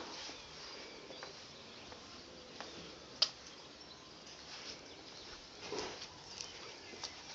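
Faint outdoor background with a few scattered short clicks and scuffs, the sharpest about three seconds in.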